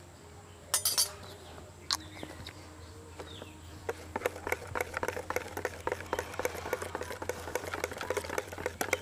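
A few sharp clinks about a second in, then a wire balloon whisk beating thin cake batter in a plastic bowl, a quick run of clicking strokes from about four seconds in.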